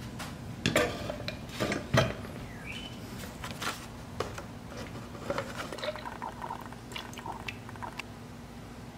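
Small knocks and clatter as a spray gun cup and a paper paint strainer are handled, with a few sharp knocks in the first two seconds, then thinned paint being poured through the strainer into the gun cup.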